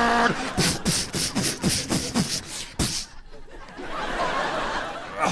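A man making vocal sound effects into a microphone: a held sung tone breaks off into a quick run of mouth pops and clicks, about three or four a second, ending on a sharp click, followed by a breathy hiss.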